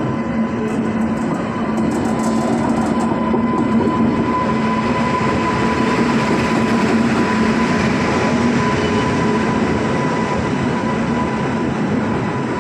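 A passenger train headed by a WAP-7 electric locomotive arrives and runs past on the adjacent track: a steady rolling din of locomotive and coaches with a steady whine over it.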